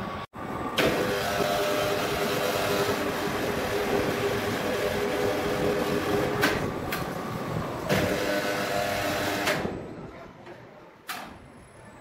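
Sawmill machinery running: a loud, steady mechanical noise with a hum in it. It starts just under a second in, two sharp knocks sound during it, and it drops away about ten seconds in.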